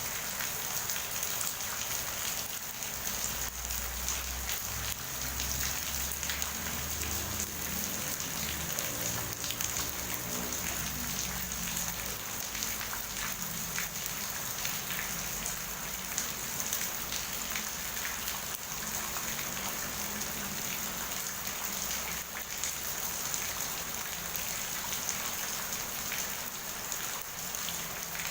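Steady rain falling, a dense patter of drops. A low rumble sits under it from about three seconds in and fades out around twelve seconds.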